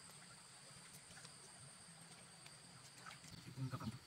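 Faint outdoor ambience: insects giving a steady, high-pitched drone, with a short burst of voice near the end.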